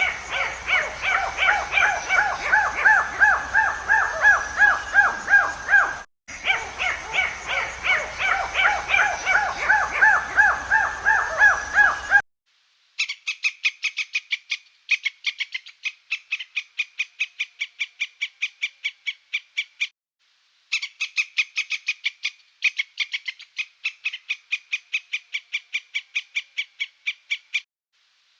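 An animal calling over and over: about twelve seconds of short pitched calls, several a second, then a faster series of sharp chips in runs of a few seconds with short breaks.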